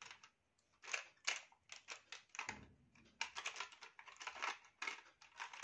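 Irregular small clicks and rattles of makeup items and brushes being handled in a makeup box, with a soft bump about halfway through.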